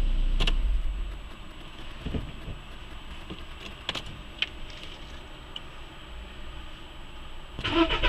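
Volkswagen Polo Sedan engine running, then dying away about a second in; a few sharp clicks follow. Near the end the engine is cranked and starts, with a steady high whistle at start-up that the owner tags as the starter, though he doubts it is the starter.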